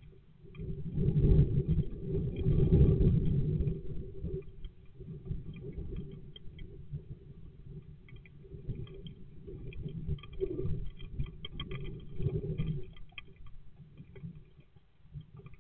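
Muffled rustling and low rumbling with faint scratchy ticks inside a nest box, as a great tit sitting in it shifts its feathers and feet. It is loudest for a few seconds near the start.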